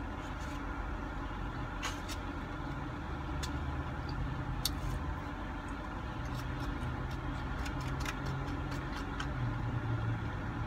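Steady low hum of a car engine idling, heard from inside the cabin, with scattered light clicks of a plastic fork against a foam takeout container.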